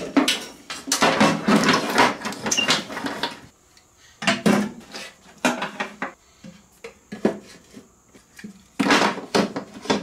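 A motorcycle wiring harness and its plastic connectors rustling and clattering against a sheet-aluminum box as they are handled and pushed into place. The clatter comes in dense spells: for the first three seconds or so, again from about four to six seconds in, and briefly near the end.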